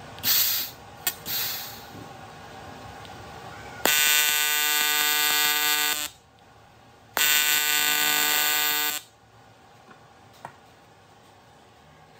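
AC TIG welding arc on 3 mm aluminium, buzzing steadily in two tack welds of about two seconds each, with a short pause between them. Two short noisy bursts come first.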